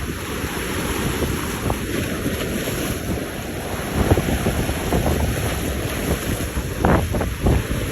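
Wind buffeting the microphone over the rush of water and boats going through the inlet, with a few louder gusts near the end.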